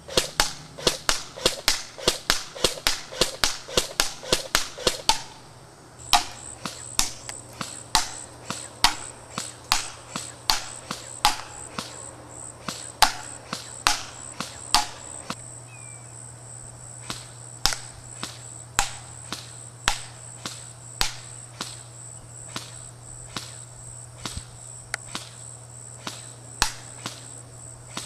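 Echo 1 MP5J airsoft electric gun firing single shots on semi-auto: a quick string of sharp cracks, about three a second, for the first five seconds, then slower shots, about one to two a second.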